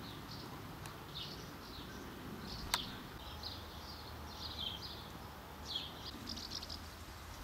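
Outdoor garden ambience: small birds chirping in short, irregular high calls over a faint steady background, with a single sharp click about three seconds in.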